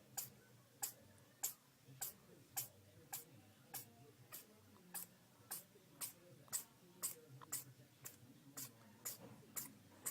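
Faint, steady ticking, a little under two sharp ticks a second, evenly spaced like a clock.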